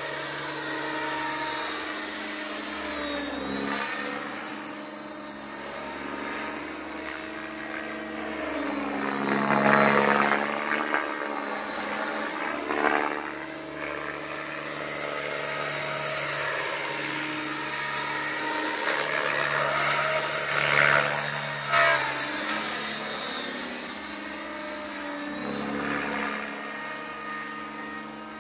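Align T-Rex 700 radio-controlled helicopter flying circuits, its rotor and drivetrain whine continuous and shifting in pitch. It swells and sweeps in pitch as it passes close, loudest about ten seconds in and again a little after twenty seconds.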